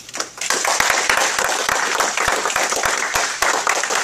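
Audience applause: many people clapping together, starting about half a second in.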